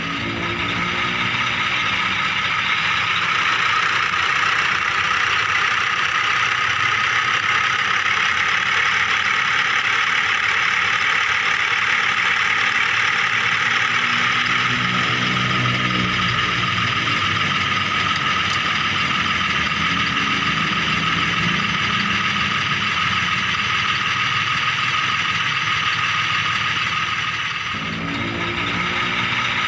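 Miniature remote-control toy excavator running with a steady mechanical whir. Deeper tones rise and fade a few times, around the middle and near the end.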